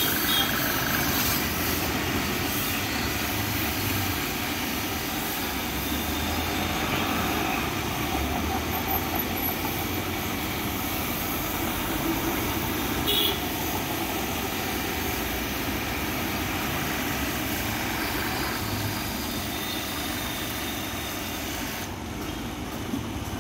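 Triplex plunger-pump pressure washer, driven by a 3 HP electric motor, running steadily while its foam cannon sprays a continuous hissing jet of foam. The spray stops about a second before the end.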